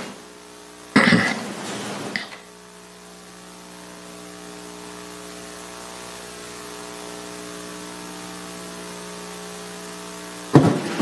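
Steady electrical mains hum with a loud, short burst of noise about a second in; talk and chuckling start near the end.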